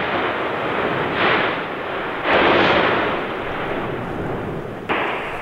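Etna's lava fountain erupting: a continuous rushing hiss of escaping gas, broken by sudden louder blasts, the strongest about two seconds in and another near the end.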